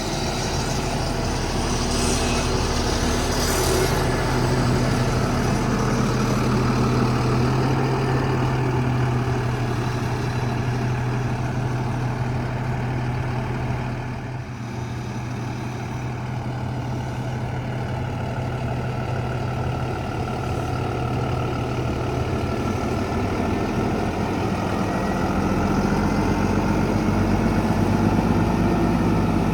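Cummins diesel engine of an International 4400 crane truck running steadily while driving the crane's hydraulics; the engine note dips briefly about halfway and climbs toward the end.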